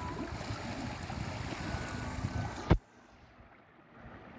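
Wind and water noise aboard a small boat at sea, cut off by a sharp click a little under three seconds in, after which a quieter wash of water and wind goes on.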